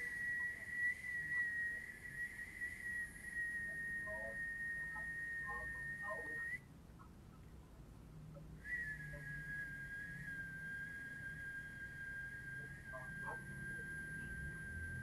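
Two long held whistled notes, each lasting about seven seconds, with a pause of about two seconds between them. The first is high and sags slightly in pitch; the second is a little lower and flicks upward as it ends. The notes are offered as a healing sound meant to calm palpitations.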